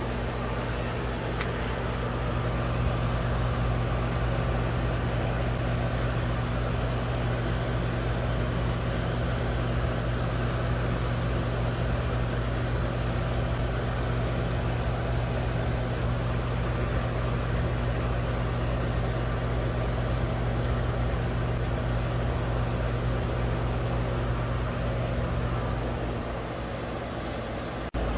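Outdoor air-conditioner condenser unit running: a steady low hum under an even rush of fan air. The hum drops away near the end.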